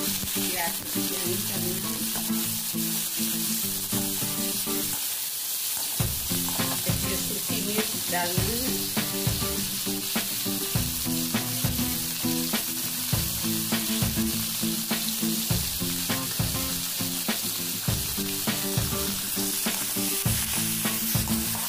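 Sliced onions sizzling steadily as they fry in hot oil in a kadhai. A metal slotted spatula stirs them, scraping and tapping against the pan many times.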